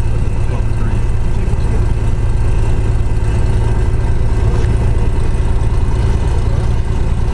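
Cessna R182 Skylane's single piston engine and propeller running steadily, heard inside the cockpit as an even, loud drone with a strong low hum.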